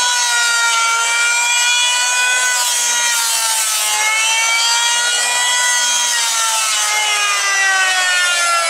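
Electric hand planer running under load, shaving rough, unplaned boards: a steady high motor whine over the hiss of the cutter. The whine sags slightly in pitch about halfway through and drifts lower near the end as the blades bite.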